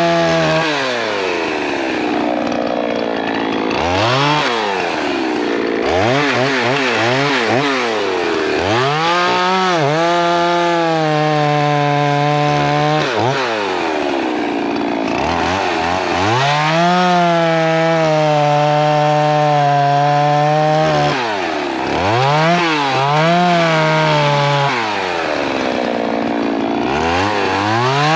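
Poulan Pro Super 380 two-stroke chainsaw bucking pine firewood. It revs up to full throttle and holds a steady high pitch through each cut, the longest two lasting about four to five seconds each. Between cuts it drops back toward idle, with several quick blips of the throttle.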